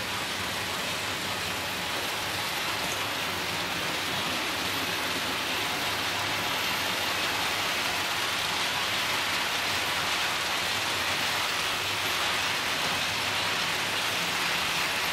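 Märklin model trains running on the layout: a steady rolling hiss of metal wheels on track with a faint motor hum, slowly growing louder as a train comes closer.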